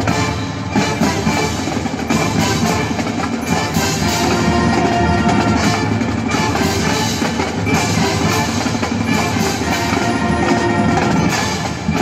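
Ice hockey goal song: loud music with drums and percussion.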